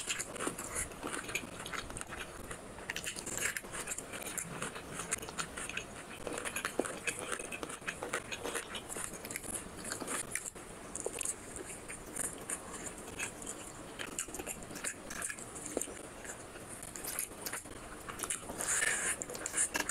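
Close-miked chewing and wet mouth sounds of a person eating rice and chicken curry by hand, with a louder spell of eating noise near the end.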